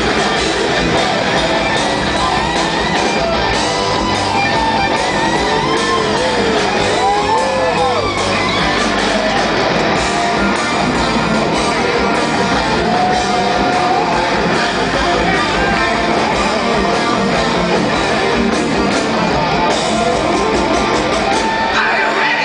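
Hard rock band playing live through a large PA, loud electric guitars to the fore, with a lead guitar line of bent, sliding notes.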